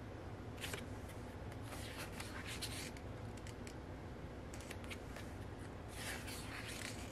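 Pages of a photobook being turned and handled: a few soft paper swishes and rustles spread through, over a faint steady low hum.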